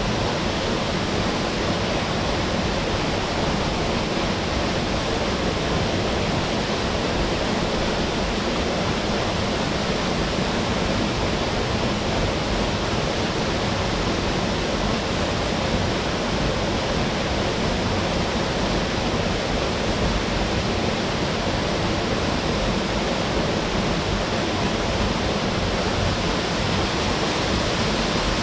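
Waterfall plunging into its plunge pool: a steady, even rush of falling water that does not change.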